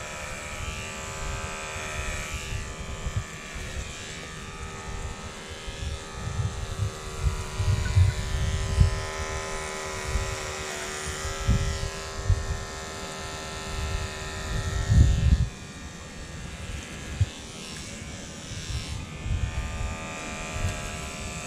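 Corded electric hair trimmer buzzing steadily as it cuts hair, its pitch wavering slightly now and then and the buzz growing weaker in the last few seconds. Irregular low thumps and rumbles sound under it, loudest about 8 and 15 seconds in.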